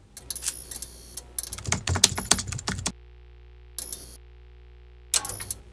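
Rapid, irregular clicking and crackling, a digital glitch sound effect for a channel intro. It breaks off about three seconds in, with a short burst near four seconds and a few more clicks near the end.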